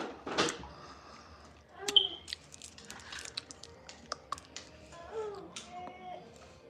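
Scattered light clicks and taps, with a sharper knock about two seconds in, and a faint voice near the end.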